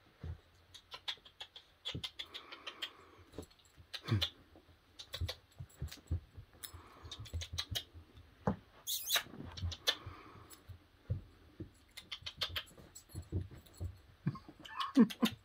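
Basset hound puppy playing at close range, sniffing, licking and nibbling, with many irregular small clicks and scuffles. A brief low vocal sound with falling pitch comes near the end.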